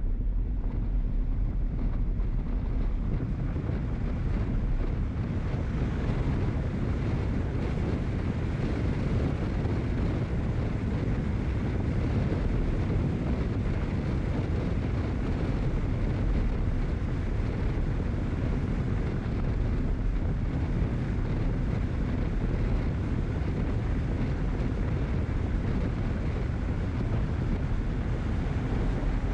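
Steady wind buffeting the microphone of a camera moving along a wet street, mixed with road noise from the ride.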